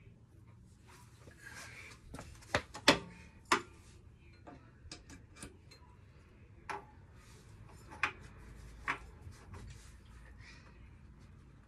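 Irregular sharp metallic clicks and taps as a washer and nut are fitted by hand onto the lower mounting stud of a motorcycle rear shock absorber. The loudest clicks come in a quick cluster about three seconds in, with single clicks later on.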